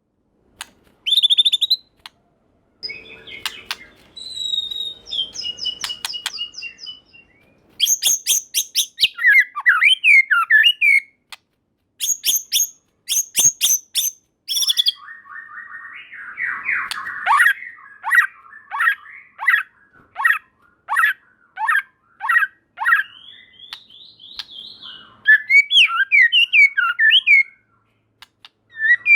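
White-rumped shama (murai batu) singing a varied song in separate phrases: clear high whistles, quick trains of sharp high notes, a harsh rasping phrase about halfway through, then a run of downslurred notes about two a second and a jumble of fast notes near the end.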